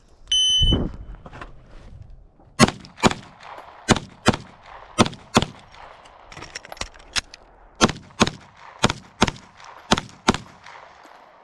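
A short, high beep just after the start, then a rapid series of pistol shots, about fifteen in all. Most come in pairs a fraction of a second apart, and each has a brief echo.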